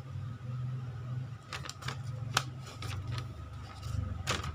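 A sheet of paper being handled, with a few short sharp crackles and rustles, over a low steady hum.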